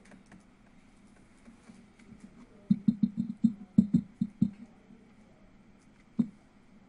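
Stylus tapping and clicking on a glass pen-display screen while handwriting: a quick run of about ten light taps lasting under two seconds, then a single tap near the end.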